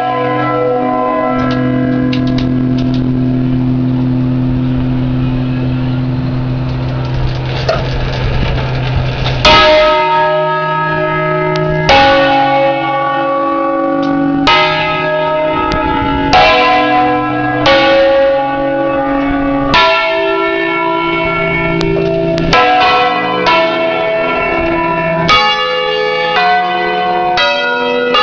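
A peal of eight church bells tuned in C, rung Ambrosian-style, heard close up from inside the belfry. A lingering hum rings for the first several seconds, then single bell strokes follow about every two seconds, coming quicker toward the end.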